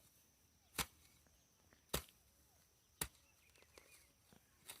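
Hoe blade striking the muddy dirt road, four sharp chops about a second apart as the path is cleared of weeds.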